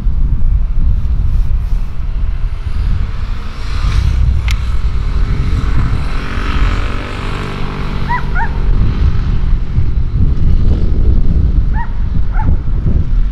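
Wind buffeting the microphone outdoors, a loud uneven low rumble, with two pairs of short rising chirps in the second half.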